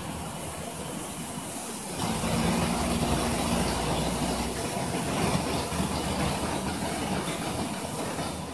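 Tap water running from a flexible spout into a stainless steel bowl of pufferfish flesh while gloved hands rinse and stir the pieces. The flow gets louder about two seconds in and then runs steadily.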